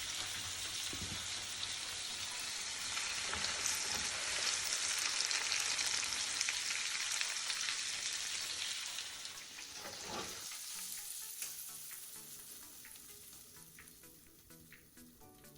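Food sizzling and frying in a hot pan, a dense crackling hiss that fades away over the last few seconds as background music comes in.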